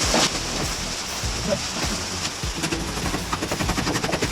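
Rain falling steadily, with a quick run of small taps in the second half.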